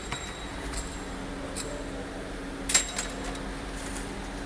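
A few light metallic clicks and one sharp metal clink with a brief ringing, near the end, as engine parts or tools are handled, over a steady low hum.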